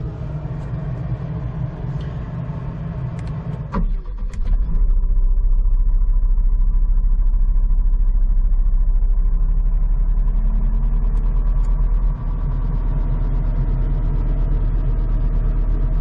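Diesel engine of a Case TV450 compact track loader running steadily, heard from inside the cab. After a couple of clicks about four seconds in, a deep rumble comes in and it gets much louder.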